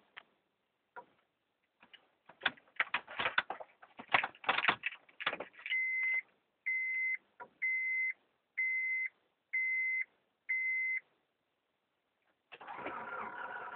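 A run of irregular clicks and knocks, then six evenly spaced high beeps about a second apart from the 1996 Honda Accord's warning chime. Near the end a steady mechanical running sound starts.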